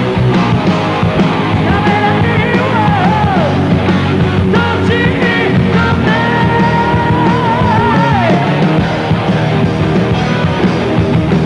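Heavy metal band playing live: electric guitar, bass and drums, with a high melody held in long notes with vibrato, the second long note bending down about eight seconds in.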